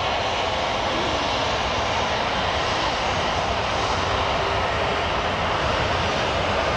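Jet airliner's engines running: a steady rushing noise that holds level, with no clear rise or fall.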